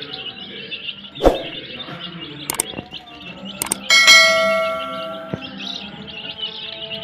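A crate of newly hatched chicks peeping continuously in shrill high chirps. About four seconds in, a bright bell-like ding rings out and fades over a second, a subscribe-button sound effect.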